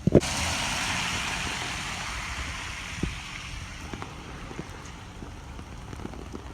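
A sudden thump, then a loud rush of storm rain and wind noise that slowly eases, with a few scattered knocks.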